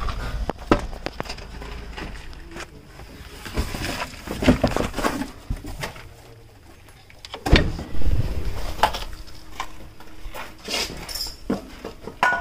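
Irregular knocks, clinks and handling noise of work around a car's rear wheel and brake drum, loudest a little past halfway.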